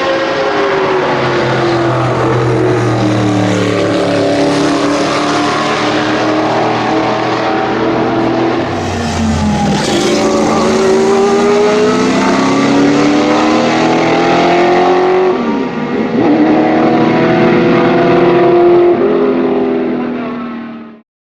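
Aston Martin AMR1 Group C race car's 6-litre V8 running hard on track, its note climbing through the gears and dropping back again and again. The sound fades out near the end.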